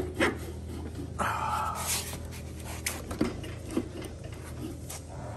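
A man breathing hard from effort, with one strained rushing exhale a little over a second in, while he tugs on a bar set through a motorcycle's front axle. A few light metallic clicks come from the bar and axle as it is worked.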